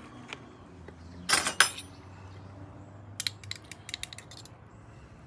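A metal spoon clinking and scraping as minced garlic is spooned from a glass jar into a stainless steel mixing bowl: one sharp, ringing clink about a second and a half in, then a quick run of small clicks a little past the middle.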